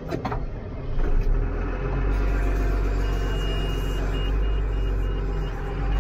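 RoGator 1254 sprayer's diesel engine starting on the key, catching about a second in and settling into a steady idle. About three seconds in a high warning tone sounds in the cab, then turns into regular beeps about twice a second: the air system is still pumping up.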